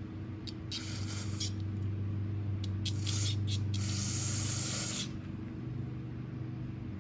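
Aerosol carburettor cleaner sprayed in several short hissing bursts, the last and longest about a second, at a clogged carburettor jet. A steady low hum runs underneath.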